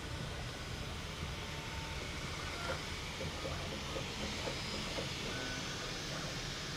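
Bambu Lab 3D printers starting their first prints: a steady hiss and hum of fans and motors, with a string of short, evenly spaced beep-like tones from the printers' motors in the middle.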